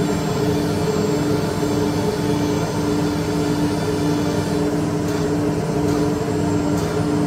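PMSK EA48-F-1328 CNC nesting router at work: the spindle machining a wood panel, together with the machine's vacuum and dust-collection blowers, making a steady loud mechanical noise with a steady hum.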